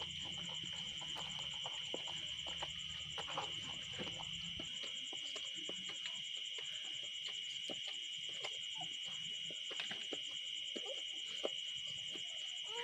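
Night insects trilling steadily in a continuous high chorus, with scattered soft clicks from the mother dog licking her newborn puppies.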